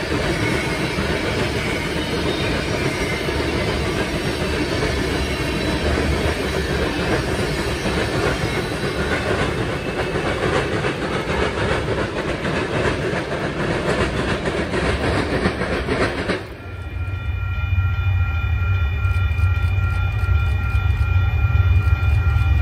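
Freight train rolling past, its cars clattering over the rails. About two-thirds of the way through the sound changes abruptly to a heavy, steady low rumble with a faint steady whine above it.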